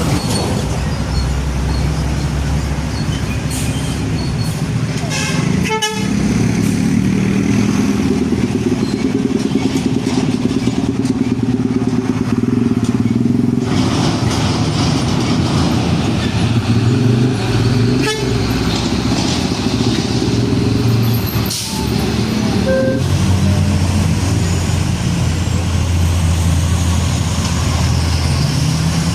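Large diesel trucks passing in traffic, their engines running loud and low, with a few brief sharp breaks in the sound along the way.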